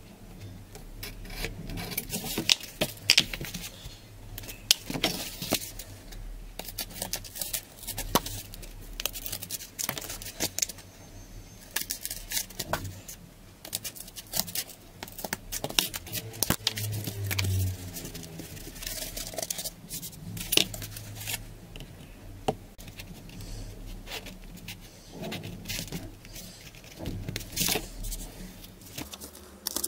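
Cardboard being handled and cut with scissors: an irregular string of sharp snips, taps and scrapes as the scissors cut through the cardboard and the cardboard and a metal ruler are moved and knocked on the table.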